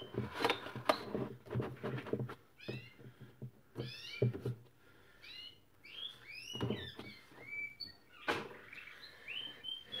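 Plastic float water container and humidity nozzle being handled and set into place inside a refrigerator cabinet: a series of light knocks and clicks. Repeated short, high chirping calls sound in the background.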